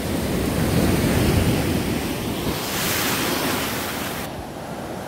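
Sea waves washing onto the beach, with wind buffeting the microphone. A brighter hiss of water comes in near the middle and cuts off suddenly after about four seconds.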